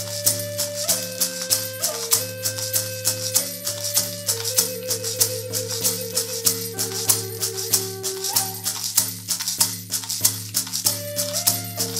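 Native American flute playing a slow melody of held notes, warbling in the middle, over a steady low drone, accompanied by a rattle shaken in a steady beat, jingle bells and a buffalo drum.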